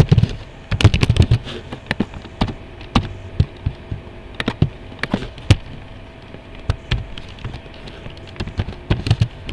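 Computer keyboard typing: irregular key clicks, a quick run of keystrokes about a second in, then scattered single clicks.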